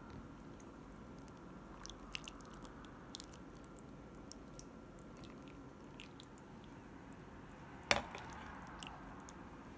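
A ladle scooping through a broth-filled hot pot: soft wet squishing and small scattered clicks, with one sharp knock against the pot about eight seconds in.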